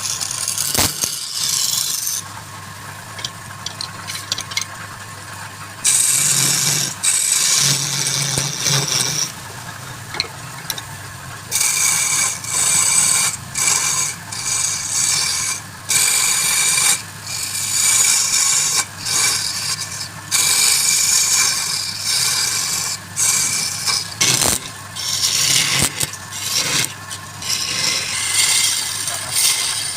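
Wood lathe running with a steady low hum while a tool or abrasive is pressed to the spinning wood in repeated scraping passes of a second or two each, with short breaks between, growing stronger about six seconds in.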